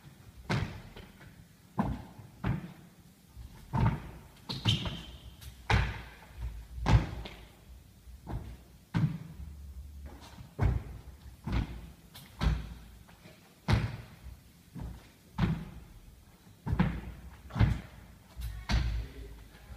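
Repeated thuds and slaps of a person doing burpees on a wooden sports floor, with hands and feet hitting the boards and landings from the jumps, about one impact a second, echoing in the enclosed court.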